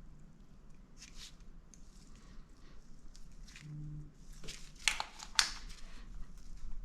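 Scattered light clicks and rustling of small engine parts and hand tools being handled while a cam chain tensioner is fitted, with two sharper clicks about five seconds in.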